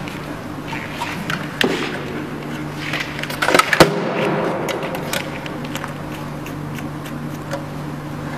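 Handling noises as cables and a metal laser power supply box are moved and fitted: scattered clicks and knocks, with a louder clatter about three and a half seconds in, over a steady low hum.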